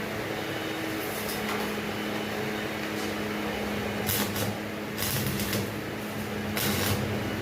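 A steady machine hum with a few short hissing bursts over it, about four in all.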